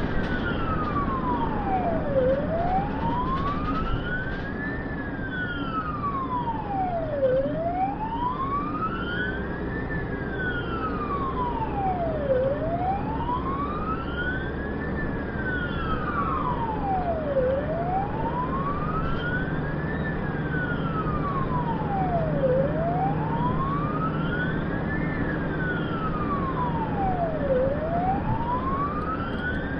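Ambulance's own electronic siren on a slow wail, rising and falling about once every five seconds. It is heard from inside the cab over the steady rumble of the engine and tyres at speed.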